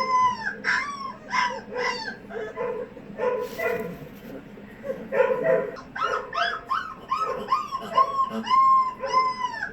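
Boerboel puppy yelping and whining in a rapid string of high cries, each rising and falling in pitch, about two a second, easing off for a couple of seconds in the middle.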